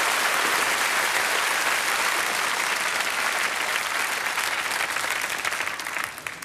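Studio audience applauding, the applause dying away near the end.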